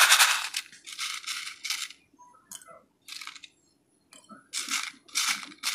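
Pieces of crushed brick rattling in a plastic bowl for the first half second, then clattering in several short bursts as they are dropped by hand into a small terracotta pot. The large pieces go in first to form a drainage layer.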